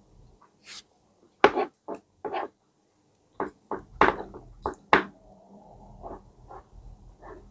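Eating sounds from two people eating rice and stewed pig trotters with spoons: short, irregular bursts of chewing and lip smacking, mixed with spoons tapping and scraping the plate, about a dozen in all with brief quiet gaps between them.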